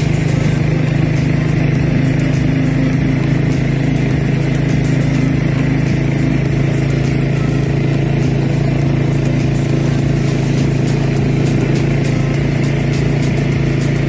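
Engine of the vehicle carrying the camera, running steadily at cruising speed along the road, a constant low hum with no change in pace.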